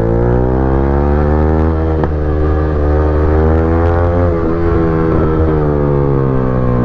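Yamaha R15 V3's 155 cc single-cylinder engine running through an aftermarket exhaust while riding. Its note climbs gently for the first four seconds or so, then eases back down.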